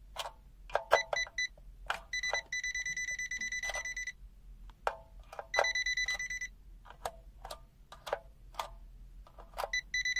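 UYIGAO UA10000 digital multimeter's buzzer sounding a high, steady beep three times: for about two seconds, then about one second, then again near the end. The beeping is its live-wire alert as the test lead detects a hot wire. Small handling clicks fall between the beeps.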